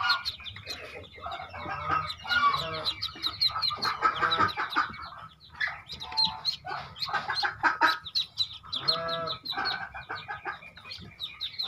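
Newly hatched Muscovy ducklings peeping, mixed with clucking calls from adult fowl, while the ducklings are picked up out of the nest box. Many short calls overlap throughout.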